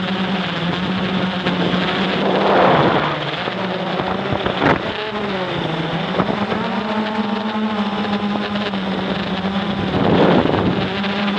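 Blade 350 QX quadcopter's motors and propellers buzzing steadily in flight, heard from the camera on board, the pitch shifting slightly partway through. Gusts of wind rush over the microphone about two and a half seconds in and again near the end, and there is one sharp click near the middle.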